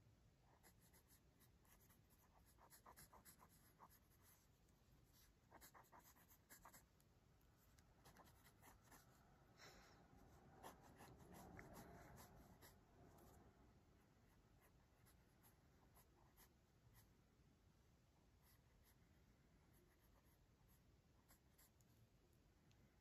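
Pencil lead scratching on paper in quick, short sketching strokes, faint and irregular. The strokes come thickest through the first half, with a louder, fuller stretch about halfway through, then thin out to scattered strokes.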